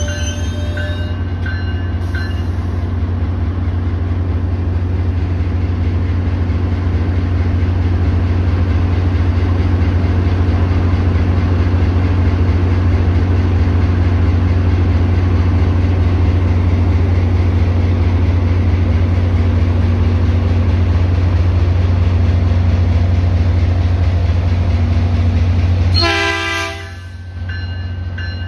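Caltrain diesel locomotive idling: a loud, steady low rumble. Near the end the rumble drops away for about a second while a brief pitched tone sounds.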